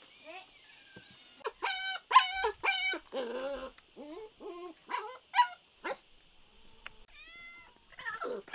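A puppy whining and yelping in a run of about a dozen short, high calls, starting about a second and a half in.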